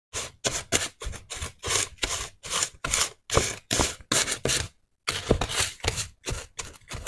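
Plastic spoon stirring and scraping a bath salt mix of pink and white salt grains in a plastic bowl: a gritty scrape about three times a second, with a short pause about five seconds in.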